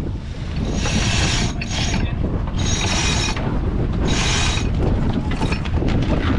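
A sailing yacht's cockpit winch ratchets as a line is worked, in four short spurts over the first few seconds. Wind rumbles on the microphone throughout.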